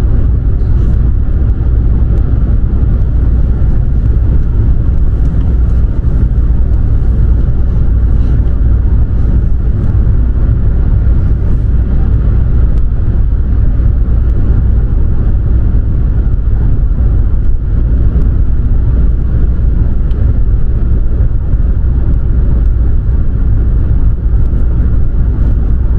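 Steady low rumble of road and engine noise from a car driving at motorway speed, heard from inside the car.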